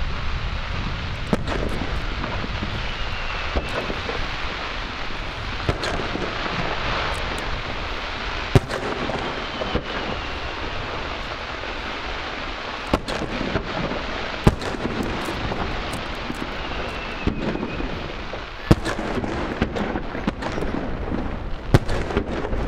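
Fireworks display: aerial shells bursting with sharp bangs every few seconds over a steady noisy background, with a few faint falling whistles.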